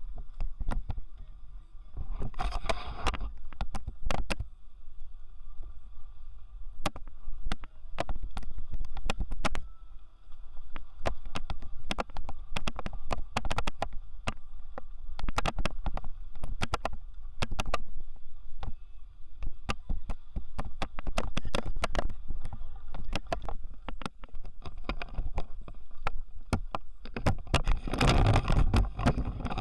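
Jeep driving over a rough, unpaved stone-and-gravel mountain track: a steady low rumble with many sharp knocks and rattles as stones strike the vehicle and the body shakes, getting rougher about two seconds in and again near the end.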